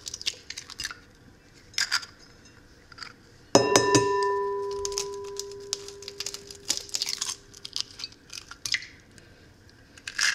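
Eggs being cracked into a ceramic mixing bowl. About three and a half seconds in, an egg is knocked against the bowl, which rings with a clear tone that fades over several seconds; small clicks and crackles of eggshell being broken open come before and after.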